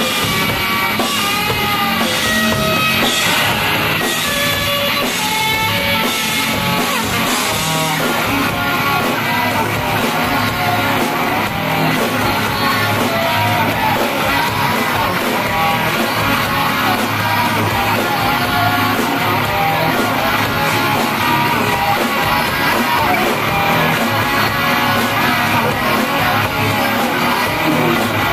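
Live rock band playing: electric guitar and drum kit with a woman singing into a microphone over them.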